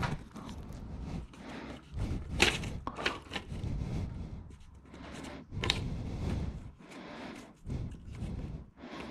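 Paper template pressed against an engine block and rubbed with the fingertips to mark the bolt holes, giving irregular scratching and rustling with a few light knocks.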